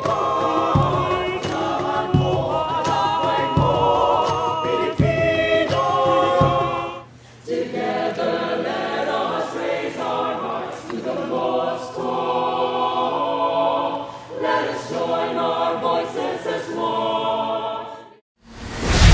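Mixed-voice choir singing with regular sharp beats keeping time. The singing breaks off briefly about seven seconds in and a second choir takes over with the same kind of sung beat, fading out near the end.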